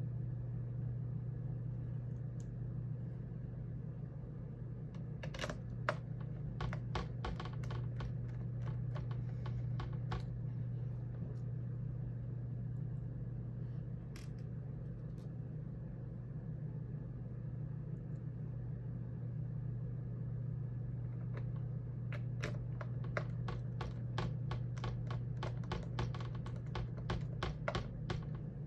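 A small screwdriver driving the tiny mounting screws back into a laptop's LCD panel and display frame: runs of light, rapid clicks about five seconds in and again from about twenty-two seconds on, over a steady low hum.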